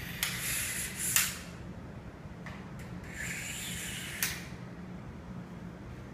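Telescopic inspection-camera pole being collapsed by hand: its sections slide together with a rubbing hiss, twice, each slide ending in a sharp click, the first click the loudest.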